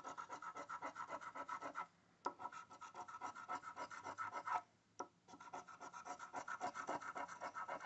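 A coin scratching the coating off a paper scratch-off lottery ticket in quick back-and-forth strokes, about five or six a second, with two short pauses.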